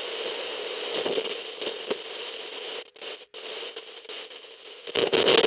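Crackling, hissing noise like radio static that cuts in abruptly, drops out twice briefly about three seconds in, and turns louder and choppier near the end.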